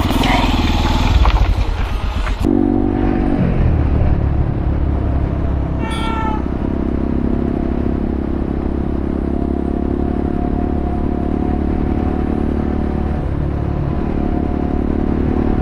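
Motorcycle engine running steadily after a sudden cut about two seconds in from a louder, noisier stretch. A brief high chirp comes about six seconds in.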